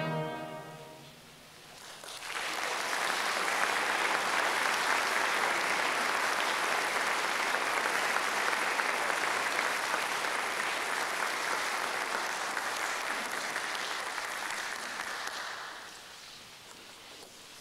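Concert audience applauding after a brass fanfare. The fanfare's last chord rings away in the first second, the clapping starts about two seconds in, holds steady, and thins out near the end.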